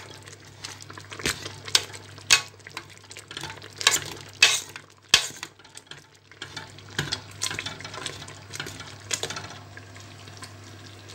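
A metal wire stirrer scraping and clicking irregularly against the sides and bottom of a stainless steel pot as it stirs thick apple jam near the end of its cooking. The strokes thin out over the last second or two.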